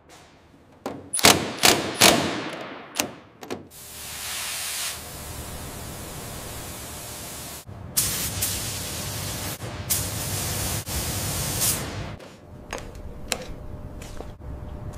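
Sound-effects sequence of sharp metal clanks in the first few seconds, then a steady hiss, then a louder paint spray gun hissing in several long bursts, with a few faint clicks near the end.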